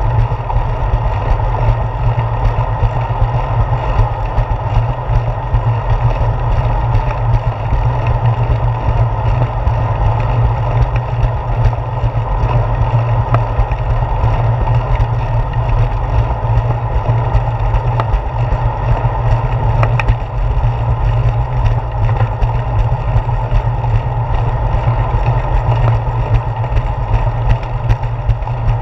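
Steady wind buffeting and rolling vibration picked up by a handlebar-mounted GoPro Hero 4 as a bicycle rides along a concrete path. It is a loud, even, low rumble with a few faint clicks from bumps in the path.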